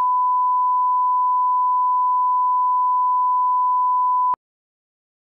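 1 kHz line-up tone of a bars-and-tone test signal, the audio reference for setting levels. It is a steady pure tone held at one pitch and cuts off suddenly a little over four seconds in.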